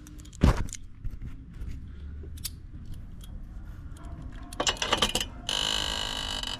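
Metal tools clinking and knocking against the dirt bike's rear axle hardware, with a sharp knock about half a second in. Near the end comes about a second of rapid, steady ratcheting from a socket wrench.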